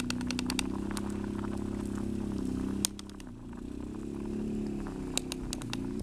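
Campfire crackling with a few sharp pops, over a steady low drone that breaks off about halfway through and then swells back.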